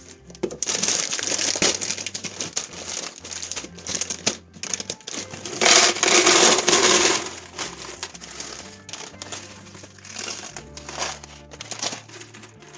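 Plastic food packaging crinkling and rustling while being handled, in two louder bouts, about half a second in and around six seconds in, over background music.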